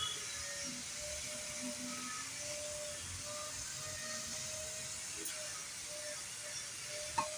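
Steady hiss with a faint, steady humming tone underneath, the noise of machinery running.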